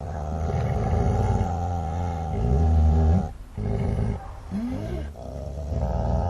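Dogs growling and snarling: a low continuous growl that breaks off briefly about halfway through, followed by a few rising and falling snarls before the growl picks up again.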